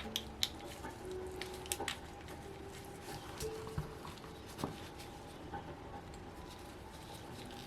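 Scattered light clicks and taps of small hand tools and metal parts while an OS FS-20 model four-stroke glow engine is being disassembled, over a faint steady hum with a few short low tones.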